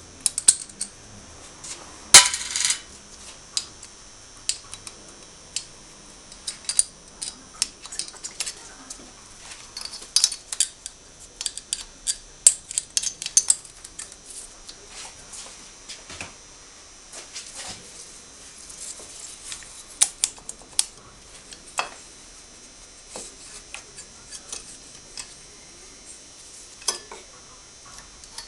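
Scattered metal clinks and clicks of hand tools and engine parts as the cylinder head comes off a Suzuki ST250's air-cooled single-cylinder engine. There is a loud ringing clank about two seconds in and a busy run of clinks around the middle.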